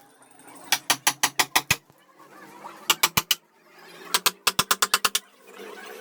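Wood carving chisel struck by a mallet in quick runs of sharp taps: about eight taps in the first two seconds, three more around the middle, then about ten near the end.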